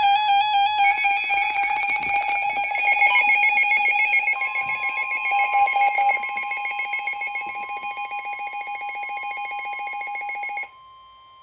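Emergency Alert System attention tone: a loud, steady electronic alarm tone, with a second tone joining about four seconds in. It cuts off sharply about ten and a half seconds in, leaving a fainter tone, and the warning's voice message follows.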